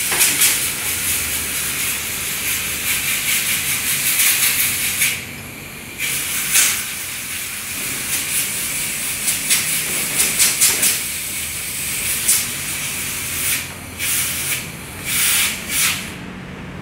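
Compressed air hissing from a blow gun as it blasts dust out of a motorcycle's panel air filter element, cleaning the filter. It runs in long blasts with a short pause about five seconds in, then comes in a few short spurts near the end.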